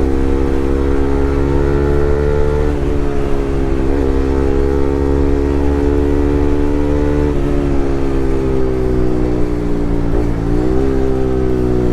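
Bajaj Pulsar RS200's single-cylinder engine through a loud aftermarket Akrapovic R1M full-system exhaust, running at fairly steady revs while riding. The pitch dips briefly about four times and climbs back as the throttle is eased and reopened.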